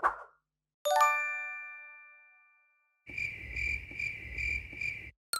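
Cartoon sound effects: a single bright chime struck about a second in and ringing out, then a cricket chirping sound effect for about two seconds, the comic gag for an awkward silence.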